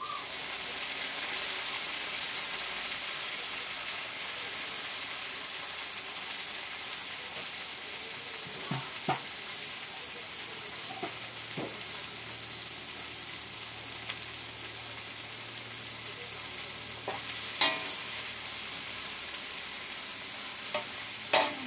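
Cassava leaves dropped into a hot oiled wok: a sizzle starts suddenly and carries on steadily as they fry. A few sharp knocks of a utensil against the wok come through it, the loudest ones late on.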